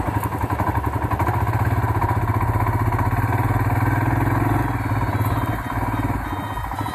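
Royal Enfield Himalayan's 411 cc single-cylinder engine running at low speed, pulling the bike through soft sand with a steady thump of firing pulses. The revs rise a little midway, then ease off near the end.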